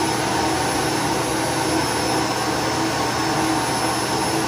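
iRobot robot vacuum's self-emptying dock running its suction motor, sucking the dirt out of the robot's bin into the bag inside the base. A loud, steady rush of air with a high whine.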